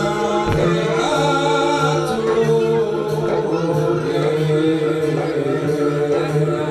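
Javanese jaranan campursari music played live: a sung vocal line over steady held tones, with light percussion strikes keeping a regular beat.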